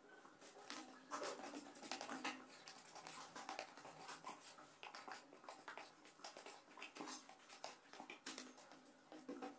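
Putty knife scraping and stirring thick paste in a small plastic tub: a quiet run of irregular scrapes and taps of the blade against the tub's sides and rim.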